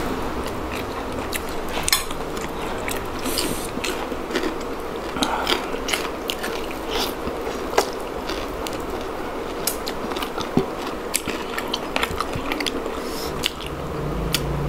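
Close-up eating sounds: chewing with many small, sharp, irregular mouth clicks and smacks.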